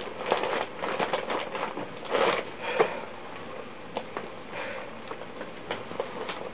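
Foil crisp packet crinkling and rustling as it is handled, in several bursts over the first three seconds, then a few faint rustles and sharp clicks.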